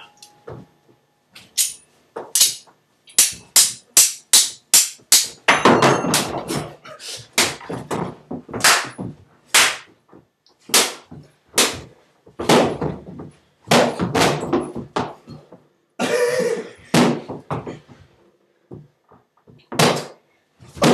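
A long series of sharp thunks and whacks, comedy sound effects of the hit-and-knock kind, each with a short ringing tail. They come in irregular runs, fastest a few seconds in, with a longer rough sound about three-quarters of the way through.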